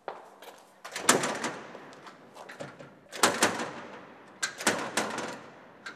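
A locked door being shaken and banged on in three bursts of rattling knocks, about a second in, past the middle, and near the end; it does not open.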